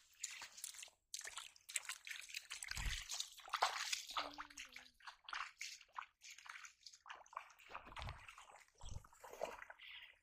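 Two people wading barefoot through shallow water: irregular splashing and sloshing as their feet step into and lift out of the water.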